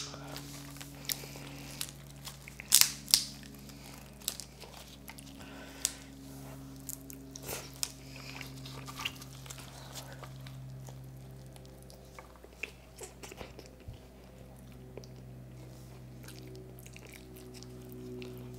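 Close-miked eating of stir-fried crab: scattered crunches and clicks of chewing and biting on crab, loudest around three seconds in, over a steady low hum.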